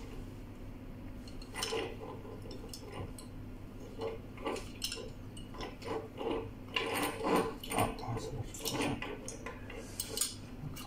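Light clicks and metallic clinks of a small axial cooling fan and its wire finger guard being handled and fitted together by hand, busiest near the end, over a steady low hum.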